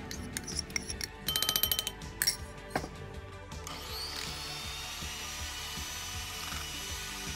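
A utensil clicking and scraping against a ceramic bowl as puree is scraped out. About four seconds in, an electric hand mixer starts with a rising whine and runs steadily, its beaters whisking a mango and cream mixture in a glass bowl.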